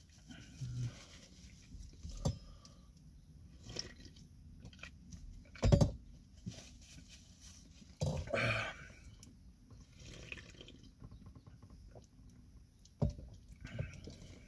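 A man sniffling and breathing hard, with a handful of short, sharper breaths or snorts, the loudest about six seconds in, and a paper napkin rubbing at his nose and eyes. He is reeling from the heat of very hot chicken-wing sauce.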